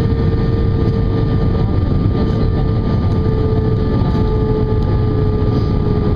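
Airbus A320 cabin noise on approach: the steady roar of the jet engines and rushing air heard from a passenger seat, with a constant engine hum over the low rumble.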